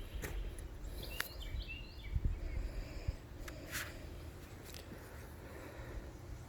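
Outdoor ambience: a low rumble of wind or distant noise, with a few short bird chirps about a second in and some scattered clicks.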